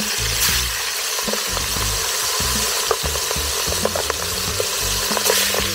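Boiled pork jowl freshly dropped into hot oil, deep-frying in an open aluminium pressure cooker: a steady loud sizzle with scattered sharp pops of spattering oil.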